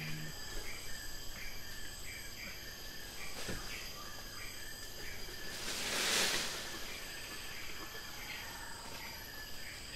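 Insects chirping in a regular rhythm, about two chirps a second, over a steady high hum. A rushing swell of noise rises and fades about six seconds in.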